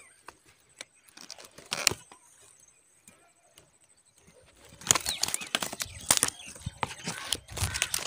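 Twigs and dry nest material rustling and crackling close to the microphone as branches around a bird's nest are handled, with a quiet stretch in the middle and denser rustling from about five seconds in.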